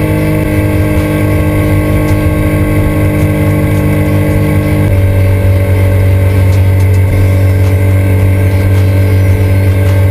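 Triumph Daytona 675 inline-three engine running under way at a steady pitch. The engine note steps down to a lower steady pitch about halfway through.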